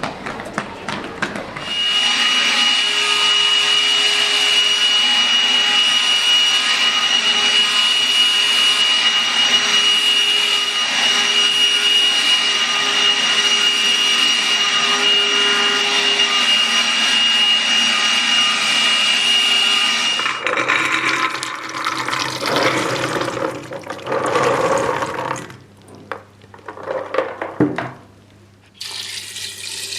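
An electric appliance motor runs steadily with a high whine for about eighteen seconds, then switches off suddenly, followed by irregular handling sounds.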